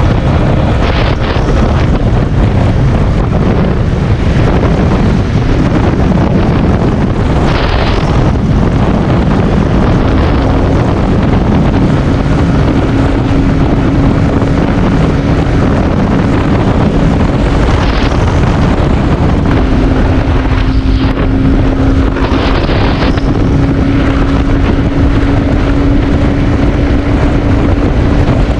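Heavy wind rushing over the microphone and the steady drone of a Haojue NK150 motorcycle's engine held at about 100–115 km/h, its pitch dipping about two-thirds of the way through and then rising a little. A few brief whooshes come through the wind.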